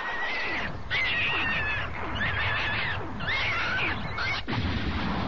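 Monster sound effect from an animated creature: a string of about five high, warbling shrieks, each under a second long, over a low rumbling noise.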